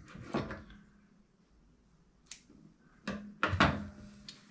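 Scissors trimming thread at a sewing machine, then set down on the wooden sewing table while cloth is pulled and rustled. There is a sharp snip-like click partway through, and the loudest knocks come about three seconds in.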